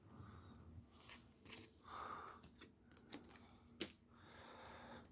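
Near silence, with a few faint clicks and soft rustles of trading cards being handled.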